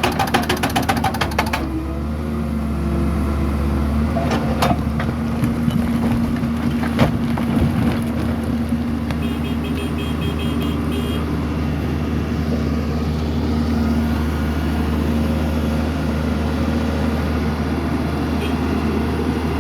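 Doosan DX140W wheeled excavator's diesel engine running steadily, with a fast rattle in the first second or so and a few knocks about five and seven seconds in.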